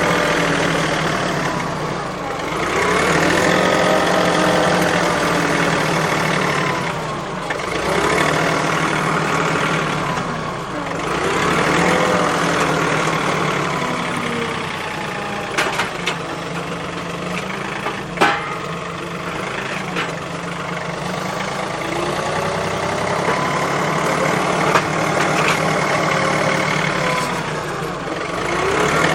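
An engine running steadily, its pitch rising and falling every few seconds as if revved and eased, with a few sharp knocks.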